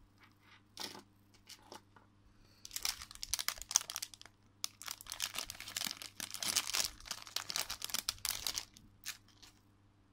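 Thin clear plastic packaging bag crinkling and rustling as it is handled and pulled open to take out a small keychain. A few light clicks come first; the crinkling starts a few seconds in, lasts about six seconds and stops shortly before the end.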